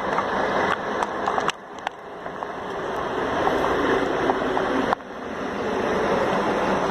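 Scania K113 CL bus's diesel engine running under load as the bus drives off. The sound drops suddenly about a second and a half in and again about five seconds in, each time building back up gradually, as the gears are changed.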